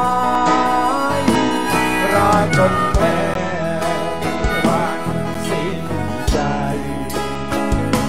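Live band playing an instrumental passage of a song: guitars and bass over drums, with a lead melody line on top and drum hits at a slow, steady beat.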